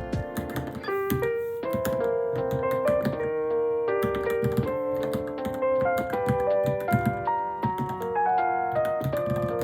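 Fast typing on a Varmilo Minilo mechanical keyboard, a steady run of key clacks, over background piano music.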